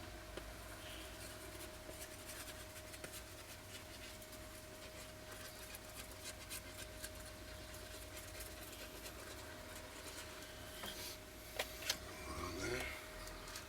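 Quiet handling noises: scattered light ticks and scrapes over a steady faint hum, with two sharper clicks and a short squeak near the end.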